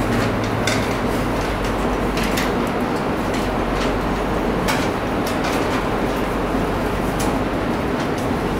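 Marker strokes on a whiteboard, short scratchy ticks about once a second, over a steady loud background hum with a low electrical buzz.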